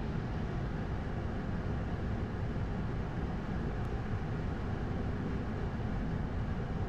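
Steady rushing flight-deck noise of an Airbus A220-100 descending on approach, air rushing past the airframe with the engines running beneath it, deep and even throughout.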